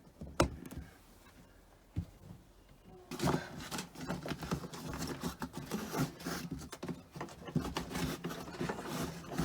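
Handling noises: a sharp click, a single knock, then from about three seconds in a continuous run of rattling and clattering as objects are moved and put back in place.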